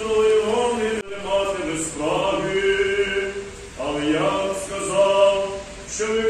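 A choir singing a slow Orthodox memorial-service chant without instruments, long held notes moving step by step in phrases with short breaks between them.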